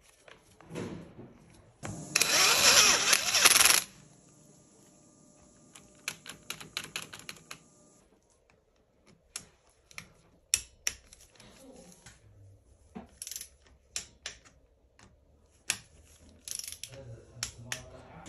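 Hand ratchet clicking in quick even runs while tightening the timing-chain guide bolts on a BMW N47 engine block, among scattered metal taps and clicks of tools and parts. About two seconds in there is a loud burst of noise lasting nearly two seconds.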